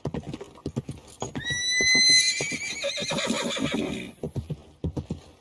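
A horse whinnies about a second in: a long, high call that starts steady and breaks into a quavering warble, lasting nearly three seconds. Under it runs the rhythmic hoofbeat of horses cantering through shallow water on wet sand.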